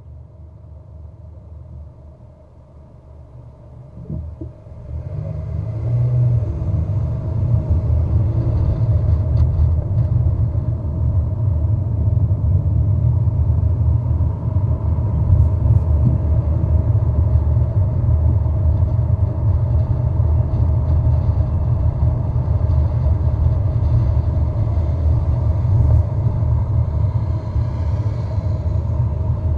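Car driving, a low steady rumble of engine and road noise; it is faint at first, rises about five seconds in and then holds steady.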